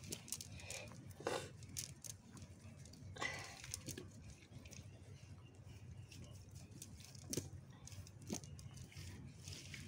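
Quiet, scattered small clicks and rustles of hands working through a wet cast net, picking out small fish, with a few brief louder rustles about a second in, around three seconds in, and near the end.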